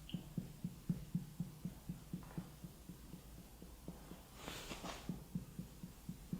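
Finger percussion on the abdomen: faint, dull taps in an even run of about four a second, with a couple of soft rustles.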